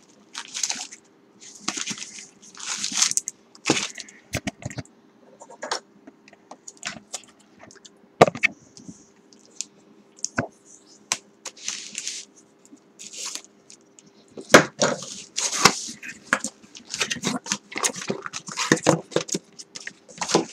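Cardboard and paper packaging being handled and torn open by hand: a string of rustles, scrapes and sharp crackles, with a faint steady hum underneath.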